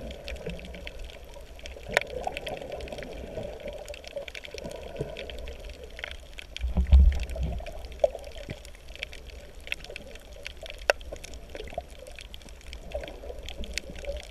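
Underwater sound picked up by a snorkeler's camera over a shallow reef: a steady wash of water noise with scattered sharp crackling clicks throughout. A low rumble about seven seconds in is the loudest moment.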